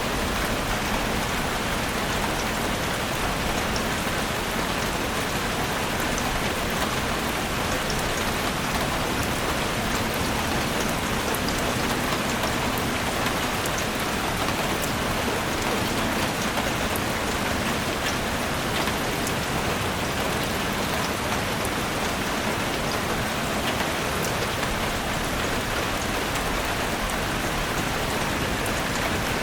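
Steady heavy rain falling on forest foliage, a dense even hiss of many drops with fine crackling patter.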